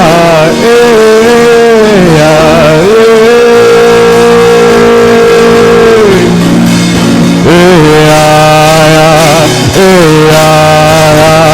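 Slow worship music made of long held notes that waver and bend in pitch, with brief slides from one note to the next.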